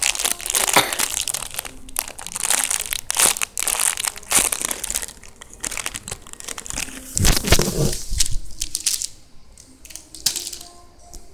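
Plastic wrapping crinkling and crackling in irregular bursts as it is handled around a squishy toy.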